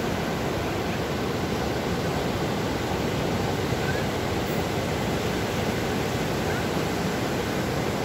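Ocean waves breaking and washing up a sandy beach: a steady, even rush of surf.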